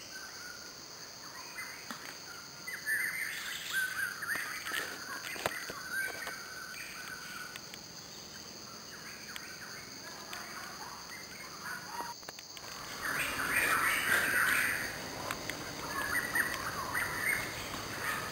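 Birds chirping and calling, livelier in two spells: a few seconds in and again in the last few seconds.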